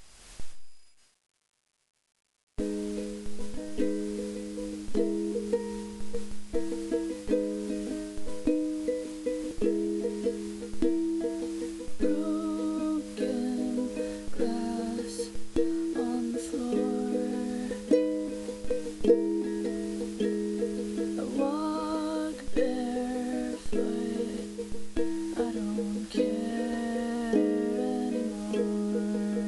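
Ukulele chords played in a steady rhythm, starting about two and a half seconds in after a short silence.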